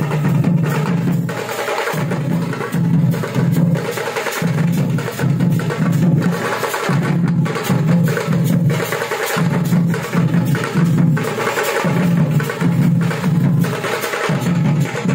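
An ensemble of Tamil parai (thappu) frame drums beaten with sticks, playing a loud driving rhythm: deep strokes fall in groups of three, the pattern repeating a little more than once a second, over a constant clatter of sharp stick strikes.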